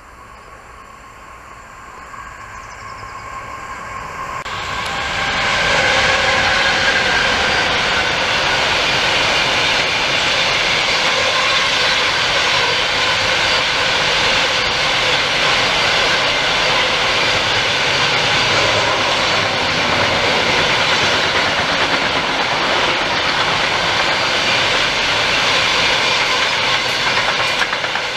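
Long freight train of hopper wagons passing on the rails: the rumble of wheels on track swells over the first few seconds as the train approaches, then holds loud and steady as the wagons roll by.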